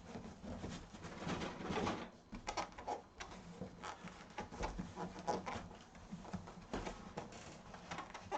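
Irregular rustling, scraping and light knocks of cardboard box packaging being handled as an ATX PC case is pulled out of it.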